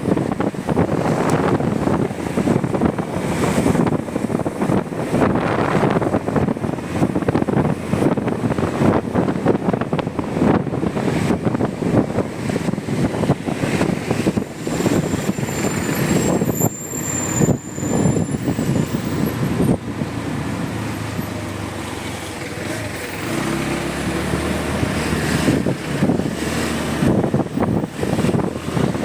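Motorcycle riding on a wet road, heard from the rider's camera: engine and wind rushing, gusty for most of the time. About two-thirds through it settles for a few seconds into a steadier, lower drone.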